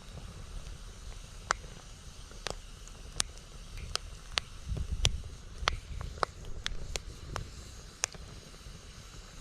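Wood campfire crackling, with sharp irregular pops and snaps, while gusts of strong wind rumble on the microphone, the strongest gust about five seconds in.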